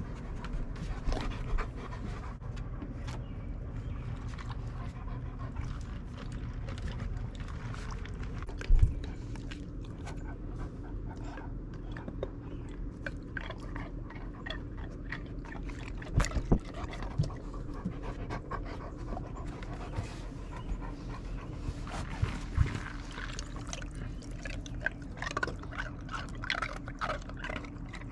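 Great Pyrenees dog panting while crunching ice cubes from a bowl: many sharp crackling clicks, with a few louder knocks.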